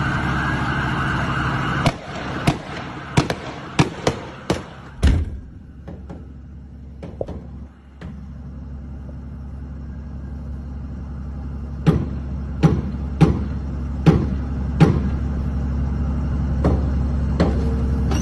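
Gunshots fired in volleys: about seven quick shots in the first few seconds, a few scattered ones, then another string of about five shots a little under a second apart, and two more near the end.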